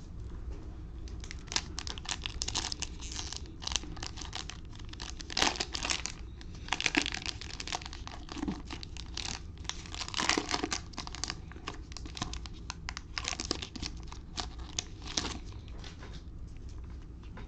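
Cellophane wrapper of a basketball trading-card cello pack crinkling and being torn open, with irregular crackles and rustles through most of the stretch.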